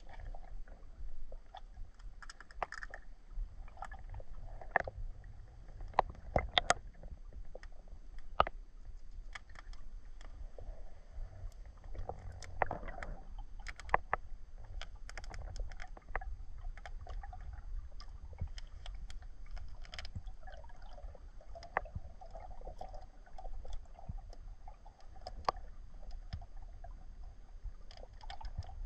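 Underwater sound picked up by a GoPro-type action camera in its waterproof housing: a steady low rumble of moving water with scattered sharp clicks and knocks, a few louder ones between about six and nine seconds in and again around fourteen seconds.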